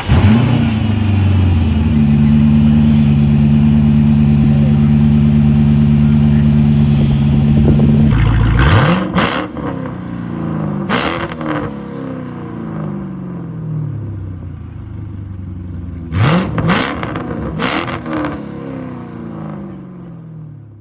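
Chrysler 300C engine revving after a spark plug and coil change: held at a steady high speed for about eight seconds, then let go, with four quick throttle blips later on that each fall back toward idle. The owner calls it running funny and puts that down to old oil.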